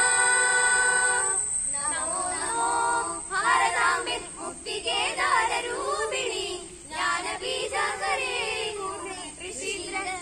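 A group of schoolchildren singing a Malayalam patriotic song in unison. They hold one long note at first, then move into shorter, quicker phrases with brief breaths between them.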